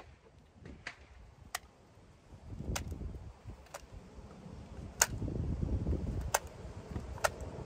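Sharp, separate clicks and ticks, about one a second and unevenly spaced, from a cleared AR-15 and its riflescope being handled; the loudest comes about five seconds in. A low rumbling noise rises twice between the clicks.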